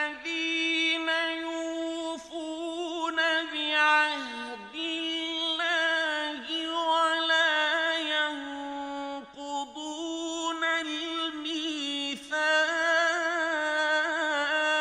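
A man's voice chanting Qur'an recitation in the melodic mujawwad style: long drawn-out notes held steady, with wavering ornaments and a few short breaks between phrases.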